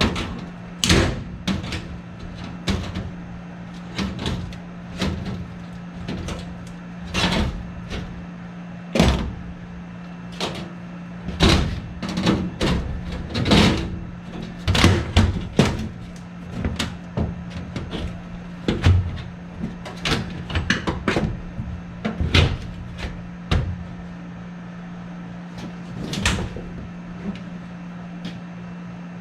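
Irregular knocks, bangs and clatters of hands-on work with parts and tools, over a steady low hum.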